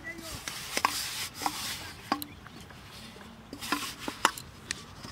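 Hands mixing and kneading a soft fishing-bait mix in a steel plate: fingers squishing and rubbing the mix, with a few sharp clicks against the metal.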